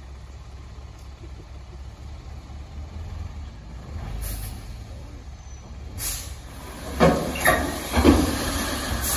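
Tri-axle dump truck's diesel engine running with a steady low rumble as the raised box tips out its load of fill. About six seconds in a hiss of air starts, followed near the end by three loud bursts of air release in quick succession.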